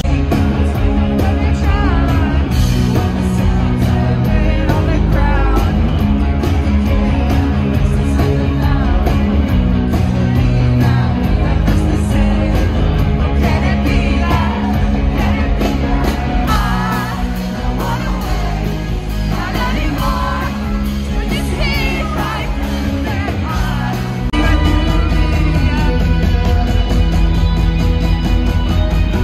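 Live rock band playing with singing over guitars, bass and drums. The bass and drums drop back from about 16 seconds in, and the full band comes back in loudly about 24 seconds in.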